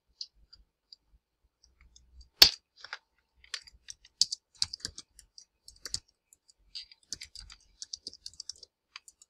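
Typing on a computer keyboard: irregular, quick key clicks, with a louder single keystroke about two and a half seconds in and another at the very end.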